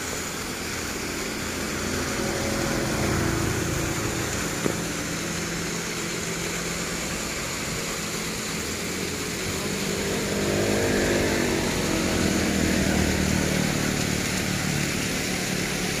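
Motorcycles passing by on the road: two passes, a lighter one about three seconds in and a louder, longer one around ten seconds in, the engine note rising and falling as each goes by, over a steady rushing hiss.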